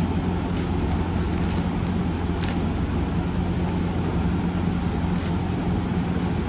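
A steady low machine hum under an even rushing noise, with one faint click about two and a half seconds in.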